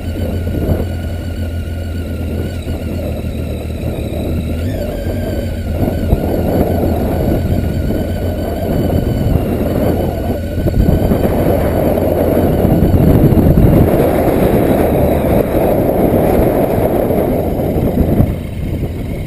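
Motorcycle engine running while riding, with a rush of wind over the microphone that grows louder midway and drops off sharply near the end.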